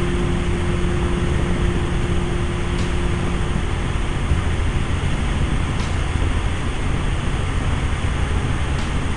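Steady, loud engine and rotor noise heard inside a helicopter cabin in flight.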